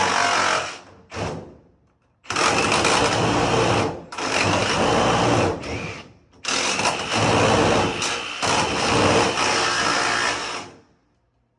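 Jigsaw cutting through sheet-metal HVAC duct, running in several bursts of a few seconds with short stops between them; the last cut stops near the end.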